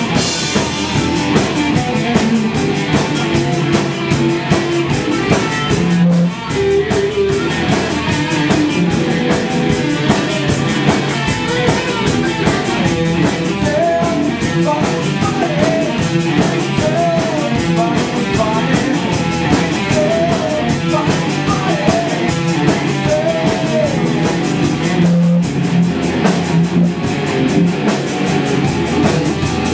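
Live rock band playing at a steady loud level: electric guitars, bass guitar and a drum kit, with a male singer's voice over them.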